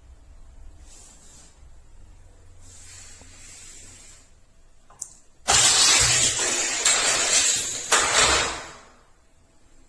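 A click, then about three seconds of loud rattling rush from a die-cast toy car launched along a plastic Hot Wheels track, with two sudden jolts before it fades out.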